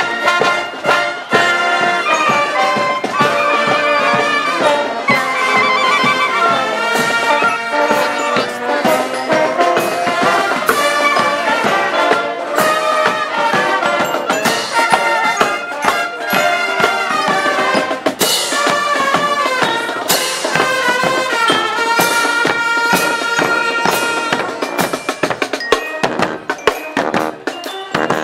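Marching band playing a tune on saxophones and brass, with bass drums beating.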